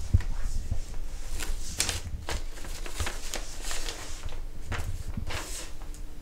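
Sheets of paper rustling and crinkling as pages are handled and turned, with scattered light taps and clicks.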